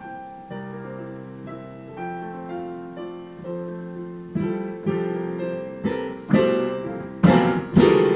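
Piano being played with both hands: a run of notes and chords that grows steadily louder, ending in heavy chords banged out about twice a second.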